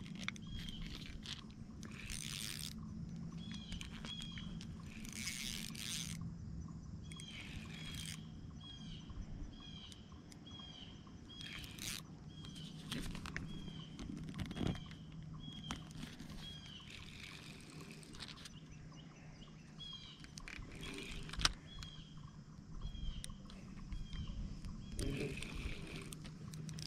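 Spinning reel being cranked while fighting a hooked fish, with a short squeak repeating at an even pace, fleece sleeves rustling and handling noises now and then, and a low steady hum underneath.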